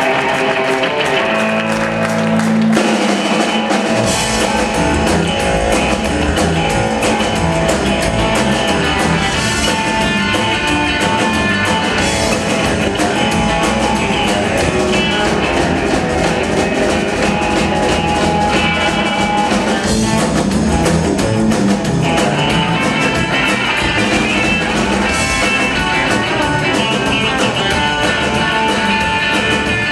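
Live rock'n'roll band playing: electric guitar, two upright double basses and a drum kit. A held low note starts about a second in, and the full band comes in about three seconds in.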